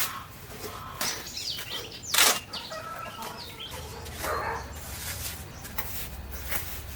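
Birds chirping, broken by a few short bursts of rustling or flapping; the loudest comes about two seconds in.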